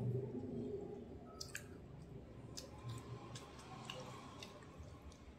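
Quiet eating sounds: soft wet squishes and scattered small clicks as cooked goat-head meat is pulled apart by hand and chewed.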